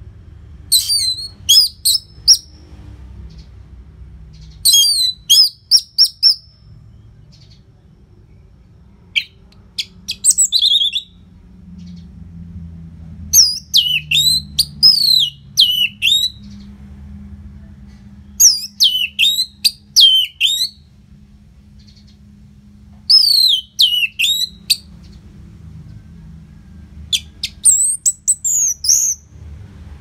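Orange-headed thrush singing loud, rapid, high song phrases, seven of them, each about two seconds long with short pauses of two to three seconds between.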